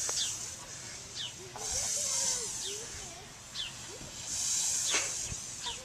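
Repeated bursts of high hissing, each about a second long and coming roughly every two and a half seconds, with short high chirps in between.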